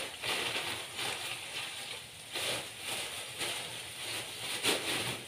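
Food sizzling in a frying pan on a lit gas burner: a steady hiss that swells and fades in waves.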